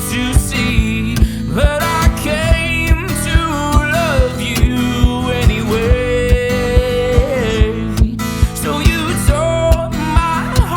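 Acoustic guitar played to a steady rhythmic pulse, with a melody line bending above it and no words.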